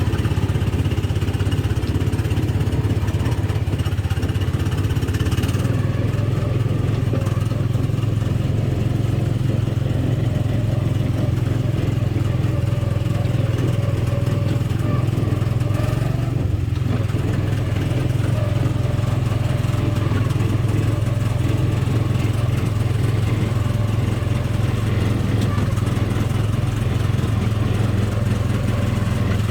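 Small gasoline engine of a Tomorrowland Speedway ride car running steadily at cruising speed, a constant low motor drone.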